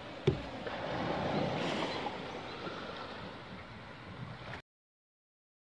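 Small waves washing on a sandy beach, with wind on the microphone and a single knock just after the start; the sound cuts off abruptly about four and a half seconds in.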